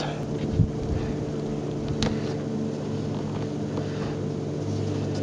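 A steady low mechanical hum, like an engine or motor running, with a couple of faint light clicks.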